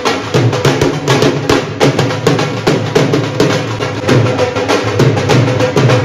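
Dhol drums beaten in a fast, dense, steady rhythm.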